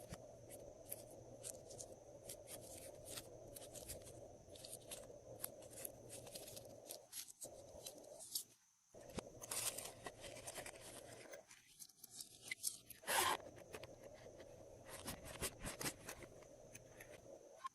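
Glossy slime being mixed and stretched by hand, with quiet, sticky clicks and crackles coming irregularly.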